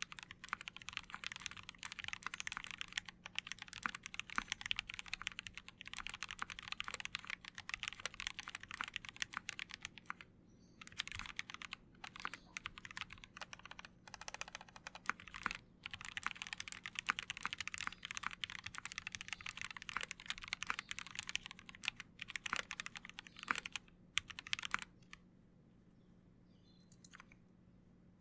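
Typing on a mechanical keyboard with lubed and filmed Gateron Yellow linear switches on a brass plate, with PBT keycaps and foam between PCB and plate. Fast, steady keystrokes with a few short pauses, thinning out to a few scattered key presses near the end.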